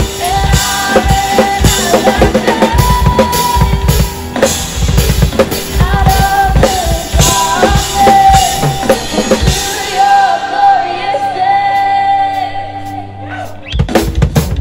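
Live band with a drum kit played hard, kick and snare under singing and held chords. About two-thirds of the way in the drums drop out, leaving only the sustained chords and voice. Near the end the kit comes crashing back in with a burst of hits.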